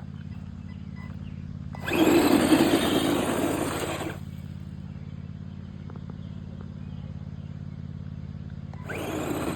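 Hobby RC car running in two short bursts, its motor and tyres rising loudly for about two seconds around two seconds in and again near the end, over a steady low hum.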